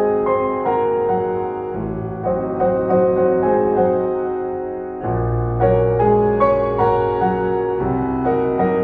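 Piano music: a melody of single notes over deep bass notes struck about every three seconds.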